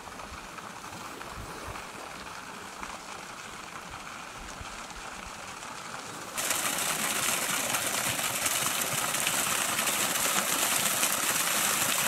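Steady rushing hiss of a fountain jet splashing into a lake; about six seconds in, the hiss steps up abruptly and becomes louder and brighter.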